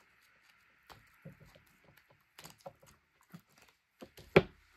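Small scattered clicks and rubbing as a silicone mould is peeled off a cured epoxy resin box panel, then one sharp knock near the end as the hard resin panel is set down on the tabletop.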